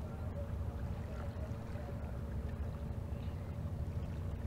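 A passing fishing boat's engine and propeller running steadily: a continuous low rumble with a faint steady hum above it, picked up underwater by a hydrophone.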